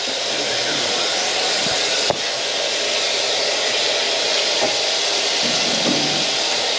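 Steady hiss of rushing water from drain-cleaning work on a grease-clogged kitchen drain line, with a single sharp click about two seconds in.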